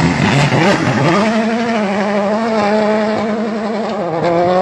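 Rally car engine held at high revs as the car powers away out of a slide. Its note settles into a steady tone about a second in and dips briefly about four seconds in.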